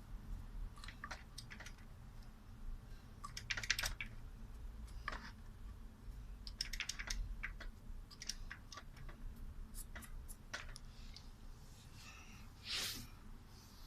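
Irregular small clicks and short scrapes of plastic and metal fan parts and tools being handled during disassembly, some coming in quick little clusters.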